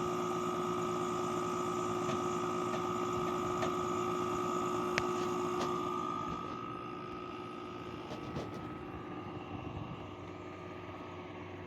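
LG 8,000 BTU portable air conditioner running with its compressor on: a steady fan hiss and hum with two steady tones. About six seconds in the sound becomes quieter, the high hiss and the lower tone drop away, and the upper tone fades soon after. There is a single click about five seconds in.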